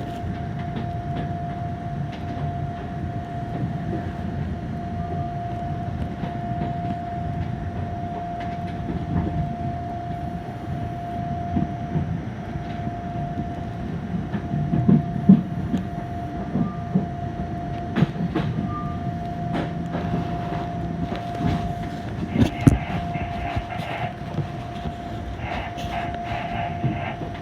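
Fukui Railway 770-series tram running slowly on its rails: a steady low rumble with a constant whine, and now and then a sharp knock, strongest about halfway through and again near the end.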